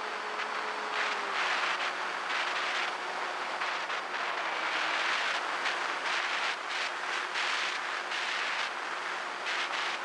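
Multiplex EasyStar's electric pusher motor and propeller running steadily in flight, heard from on board the plane, with wind rushing over the microphone. The motor's pitch dips slightly about a second in and again around the middle.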